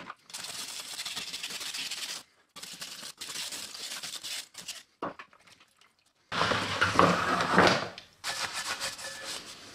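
Stiff bristle scrub brush scrubbing a wet embossed metal sign, an even scratchy rasp in stroke-long stretches with short gaps. About two-thirds through comes a louder stretch of heavier handling noise lasting about a second and a half.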